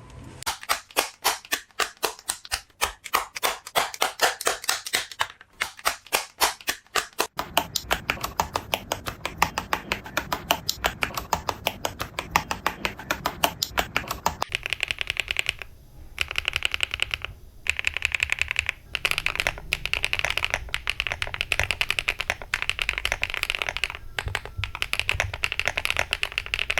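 Mechanical keyboard with Akko Mirror linear switches (PA12 top housing, nylon bottom housing, POK stem) being typed on, each key press giving a sharp clack. Separate strokes come first, then fast continuous typing from about seven seconds in; about halfway through the sound turns brighter, with a couple of brief pauses.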